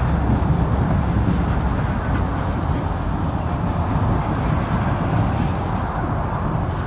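Wind buffeting the microphone, a rough steady low rumble, over the sound of a string of railroad flatcars rolling slowly past.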